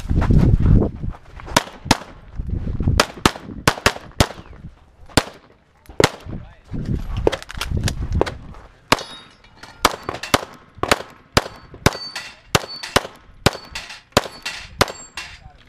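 A handgun fired in rapid strings, often as quick pairs, about two dozen shots with short pauses between groups. From about nine seconds in, many of the shots are followed by a high metallic ring from steel targets being hit.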